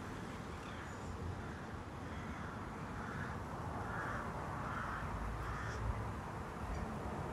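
Harsh bird calls, about five in a row roughly a second apart, over a steady low outdoor rumble.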